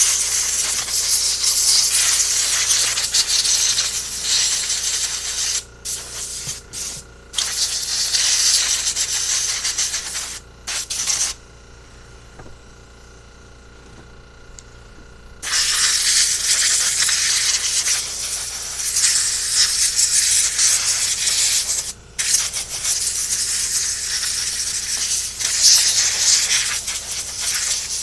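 Compressed-air blow gun hissing in long blasts as it blows dirt and fuel residue off a carburetor. There are a few short breaks and a pause of about four seconds near the middle, and a faint steady hum underneath.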